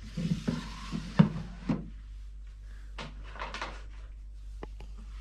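Food dehydrator tray being slid into its rack: a scraping slide with several clacks, the loudest about a second in. A second short run of clatter comes about three seconds in, followed by a couple of light clicks.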